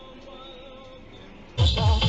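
Faint, quiet background for about a second and a half, then loud music with a deep sliding bass cuts in suddenly.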